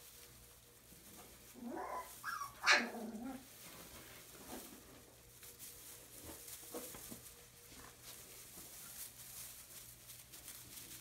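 A puppy barking: a short run of high yips about two seconds in, the loudest one sharp and brief. Faint rustling in hay bedding follows.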